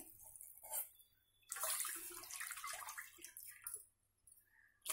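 A glass of milk poured from a steel tumbler into water in a metal pot, a faint splashing pour that starts about a second and a half in and lasts about two seconds.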